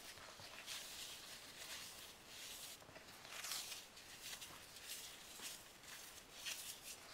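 Hands crumbling and squeezing chunks of baked floral foam coated in cornstarch: soft, dry crunching and powdery crumbling, quiet and irregular, with a couple of louder squeezes.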